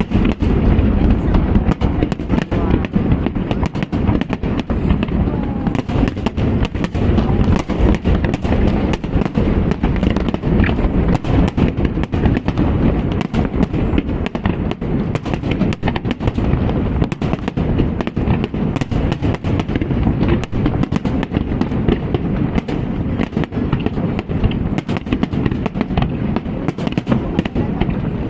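Fireworks display going off continuously: dense, rapid bangs and crackles over a steady low rumble, with no pauses.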